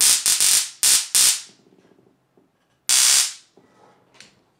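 High-voltage module's electric arc buzzing and crackling across the electrodes at the tip of a hand-held case. It comes in several short loud bursts in the first second and a half, then one more burst about three seconds in.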